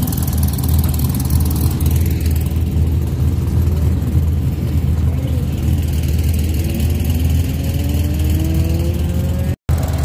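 Air-cooled VW Beetle race car engines running, a steady low idle with an engine note that rises slowly twice as revs build. The sound cuts out for a moment near the end.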